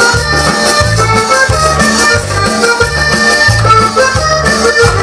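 Cumbia music played loud through a dance sound system, an accordion melody over a steady, bouncing bass line.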